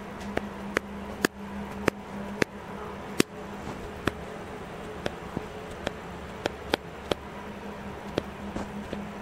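A camera's shutter-speed and ISO dial wheel clicking step by step through its detents: a string of sharp, irregularly spaced clicks, about one or two a second, over a steady low hum.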